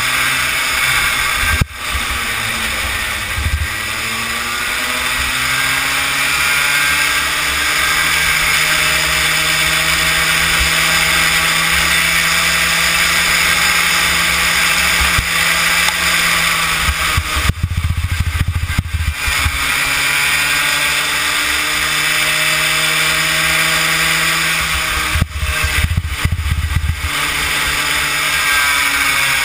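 Kid kart's small engine at racing speed, heard from the kart itself. Its pitch climbs and holds high, then drops sharply twice, about halfway through and again near the end, before climbing again.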